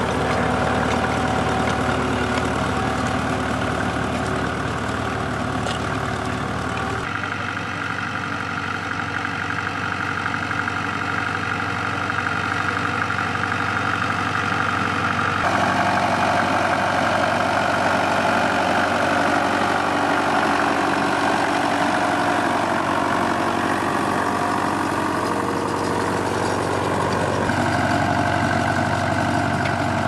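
McCormick-Deering WD-6 tractor's four-cylinder diesel engine running steadily under load while pulling a two-furrow plough through turf. The engine's tone shifts abruptly a few times.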